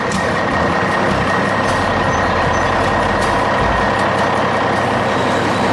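Heavy construction machine engine running steadily, a continuous diesel-like rumble with a thin, steady high tone over it.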